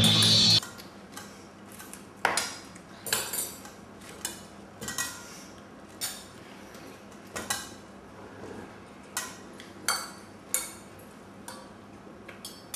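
Cutlery clinking against plates: about a dozen separate light clinks at irregular intervals.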